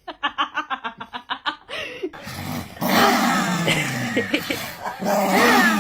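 A dog vocalising: a quick run of short pitched yips, about eight a second, then a louder, busier stretch of calls about two seconds in.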